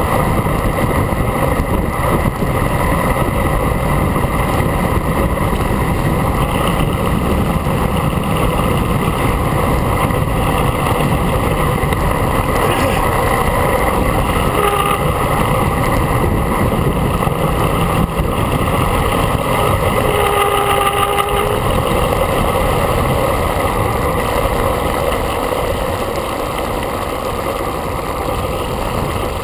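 Steady wind rush buffeting the camera microphone as a road bike descends fast, mixed with tyre noise on asphalt. A brief faint tone sounds about two-thirds of the way through.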